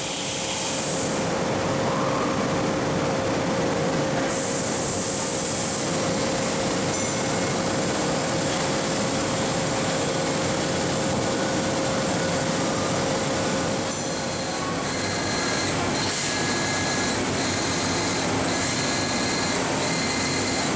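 Mitsubishi MH4050 horizontal machining center running a pallet change: steady mechanical running noise over a constant hum, with a burst of high hiss about four seconds in. About fifteen seconds in the hum's steady tone drops out and several high whining tones come and go.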